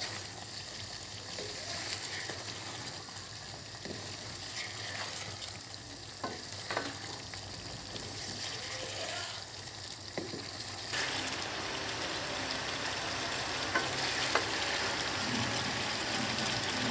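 Chicken and spice masala sizzling in oil in a karahi while a wooden spatula stirs it, with a few scrapes and knocks of the spatula against the pan. The sizzle grows louder about two thirds of the way in. This is the bhuna stage, frying the spices into the chicken.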